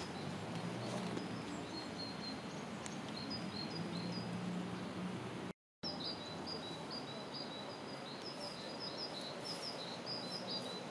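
Outdoor ambience of a steady background hum with small birds chirping in short, repeated high notes, more densely in the second half. The sound cuts out completely for a moment about halfway through.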